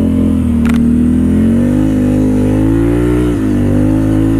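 Can-Am Renegade 1000 XXC ATV's Rotax V-twin engine running under throttle, its pitch rising and falling as the rider works the throttle, with a sharp dip about three seconds in. A single short click just under a second in.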